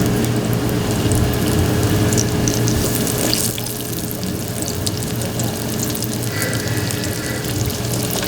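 Chicken pieces frying in hot oil: a steady sizzle with scattered fine crackles over a low electric hum, easing slightly about halfway through.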